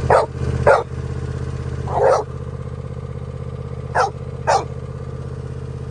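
A dog barks five times in short sharp barks at a running riding lawnmower, an old John Deere, whose engine runs steadily underneath. Two barks come close together at the start, one about two seconds in, and two more close together about four seconds in.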